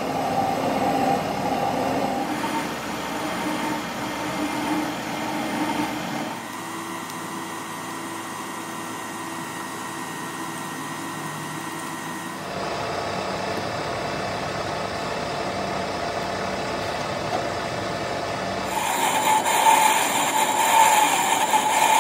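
Vertical lathe turning a rough cast iron pulley casting, with a cutting tool scraping across the iron over the machine's steady running. The sound changes abruptly three times and is loudest near the end.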